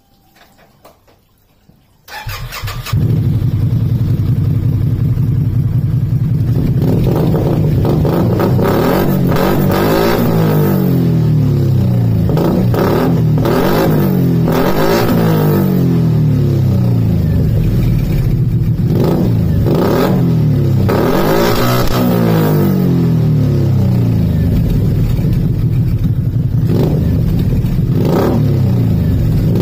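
Can-Am Outlander 500's Rotax V-twin engine, breathing through an aftermarket Akrapovic-branded silencer that is a fake, cranked and catching about two seconds in. It then idles and is revved again and again in short throttle blips that rise and fall.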